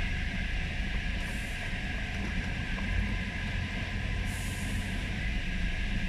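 Steady low rumble of vehicles driving slowly down a muddy dirt road, heard from inside the following vehicle's cab. Two short hisses cut in, about a second in and again past four seconds.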